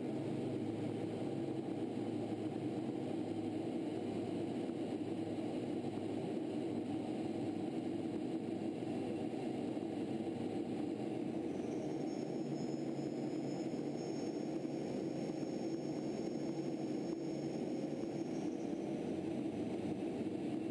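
Steady cockpit drone of a T-38 chase jet in flight: engine and airflow noise, even and unchanging throughout.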